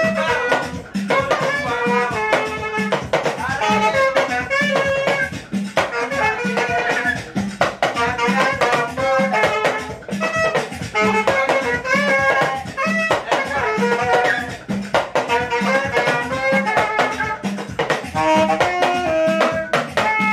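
Saxophone playing a melody over a steady drum beat of about two beats a second.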